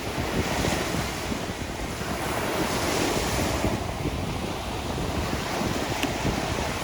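Surf washing onto the beach in a steady wash of noise, swelling about halfway through, with wind buffeting the microphone in low rumbles.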